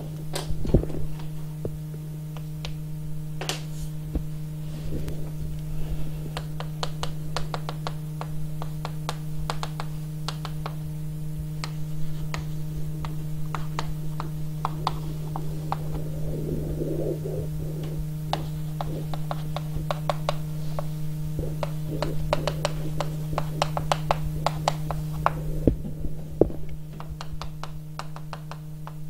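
Steady low electrical hum, with scattered light clicks and taps on top that come in bunches.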